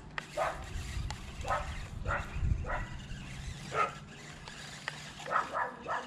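A dog barking, a string of short barks at uneven intervals.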